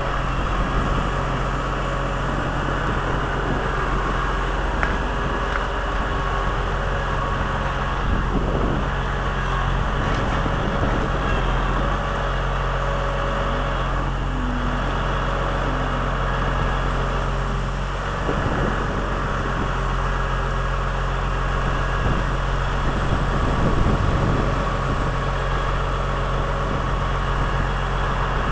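Heavy diesel engine running at a steady speed, with no clear breaker-hammer blows.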